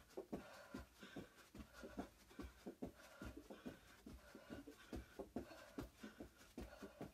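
Faint, quick, irregular soft thuds and scuffs of feet and hands landing on a rug-covered floor during a fast plank exercise, several a second.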